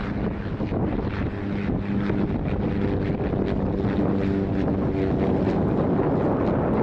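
Cessna 208B Grand Caravan single-engine turboprop on landing approach, a steady propeller-and-engine drone growing louder as it nears, with wind buffeting the microphone.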